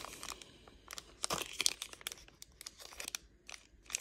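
Thin plastic packaging crinkling and rustling in irregular crackles as a USB-C cable is unwrapped from its bag, loudest about a second and a half in.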